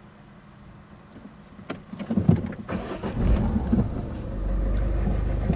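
A vehicle engine being started: a few clicks and rattles, then irregular surges as it cranks and catches, settling from about four seconds in into a steady idle.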